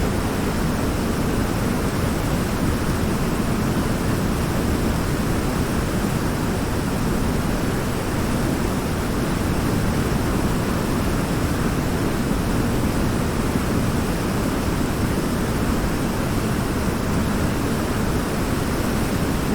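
A waterfall: water falling in a steady, unbroken rush, heaviest in its low rumble.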